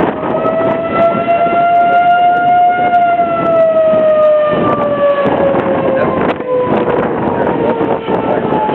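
Outdoor tornado warning siren sounding one long tone that rises slightly in pitch, then slowly falls through the rest of the sweep. Wind gusts buffet the microphone.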